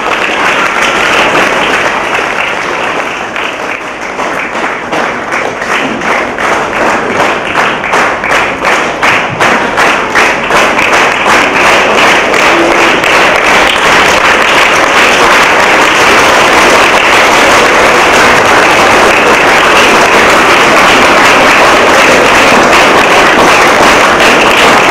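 Audience applauding, clapping together in a steady beat of about three claps a second at first, then about halfway through breaking into continuous, dense applause.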